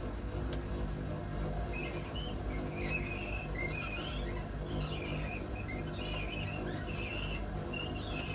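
Hotpoint WMA32 washing machine on spin: a steady low drum-and-motor hum, joined from about two seconds in by irregular high-pitched squeaks. The squeak comes from the drum rubbing against the bearing seal, as the owner explains, and marks drum bearings that are practically gone.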